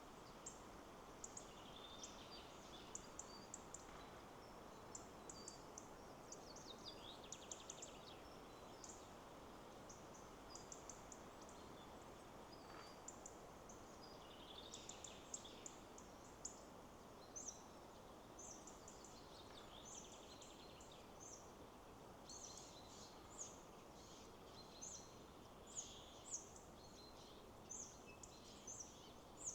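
Faint forest ambience: many small birds chirping in short, high, quick notes throughout, over a steady low rush of wind in the trees.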